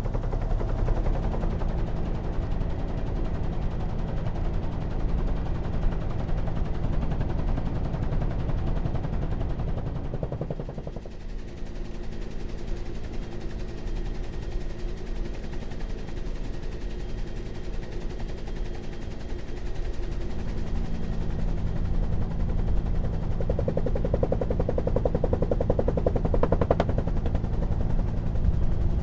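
Bell UH-1 Huey helicopter running, its two-bladed main rotor beating in a rapid, continuous thump over the steady hum of the turbine and drive train. The level dips about eleven seconds in, then builds again toward the end.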